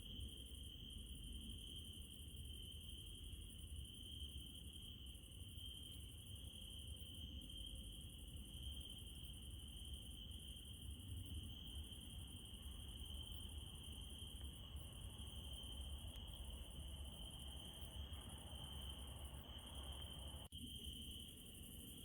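Crickets trilling steadily at night, one high continuous note, over a low rumble; the sound briefly cuts out near the end.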